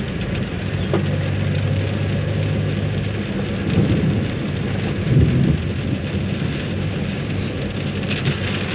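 Heavy downpour beating on a car's roof and windshield, heard from inside the cabin as a steady rush, with the engine's low hum underneath and a brief louder swell about five seconds in.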